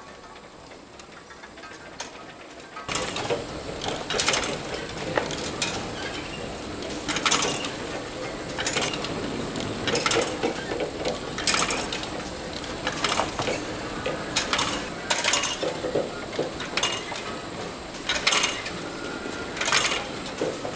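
Egg grading machinery running, with a steady rattle, a faint high whine and sharp clicks about every one and a half seconds. It gets markedly louder about three seconds in.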